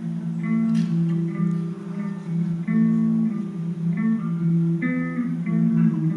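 Guitar played solo: short picked melodic licks over held lower notes that change about once a second.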